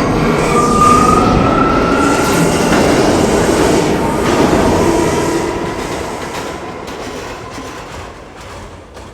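R179 subway train running on the track, with a brief wheel squeal at the start, its noise fading steadily over the last few seconds as it moves away.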